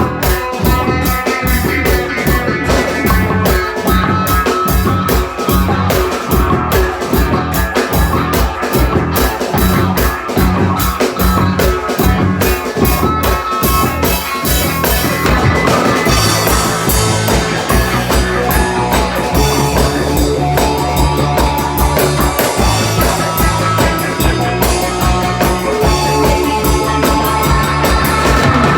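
Rock band playing at practice: a drum kit keeping a steady beat under guitar. About halfway through, the drumming changes to a denser pattern with more cymbal.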